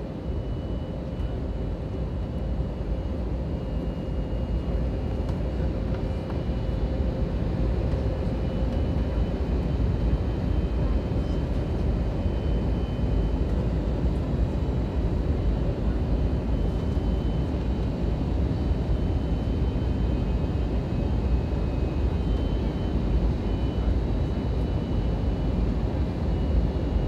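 Steady cabin noise of an Airbus A320 in flight on approach, heard from inside the cabin: an even low rumble of engines and airflow, with faint thin whines that come and go.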